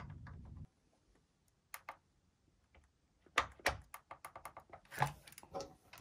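Scattered sharp clicks and light knocks of hands handling the plastic chassis and battery of a disassembled robot vacuum, a couple at first and a busier run in the last few seconds.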